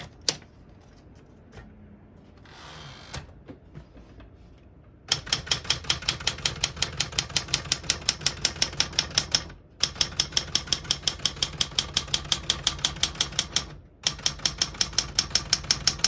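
Smith-Corona Galaxie Twelve manual portable typewriter typing rapidly in an even rhythm of about nine key strikes a second. The typing comes in three runs with short pauses between them. Before it, a few scattered clicks and a brief rustle.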